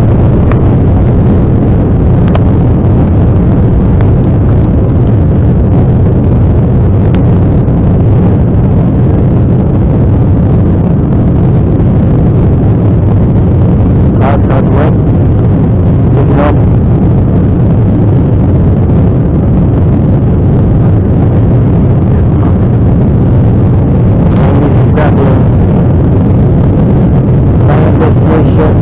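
Airliner's jet engines at takeoff thrust heard from inside the cabin, a loud steady engine and airflow noise through the takeoff and initial climb.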